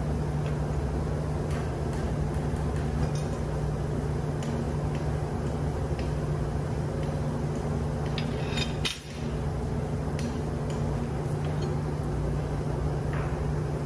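Steady low hum of ship's engine-room machinery, with scattered light metallic clinks and taps as hydraulic jack tools are fitted onto a steel connecting rod's studs.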